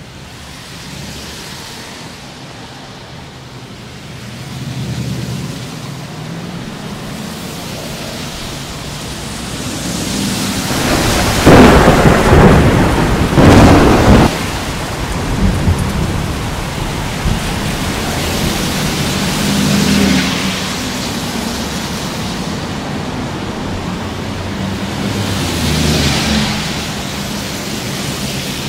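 Thunderstorm: steady rain with thunder, two loud crashes about 11 and 13 seconds in, and weaker rumbles later on.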